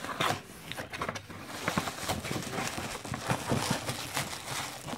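Hands rummaging in a cardboard shipping box, rustling and crinkling packing paper and bubble wrap, with many small irregular taps and knocks.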